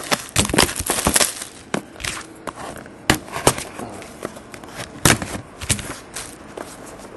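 Plastic shrink wrap being cut with scissors and torn off a cardboard trading-card box, crinkling and crackling with irregular sharp snaps.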